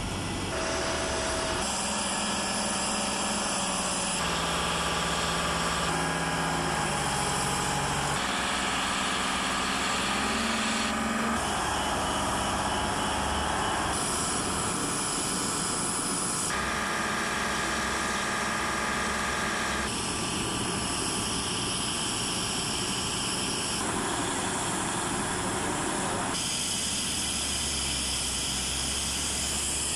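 Heavy vehicle engines running steadily and loudly, with an engine note that drops and then climbs again between about six and eleven seconds in. The mix of engine noise changes abruptly every few seconds.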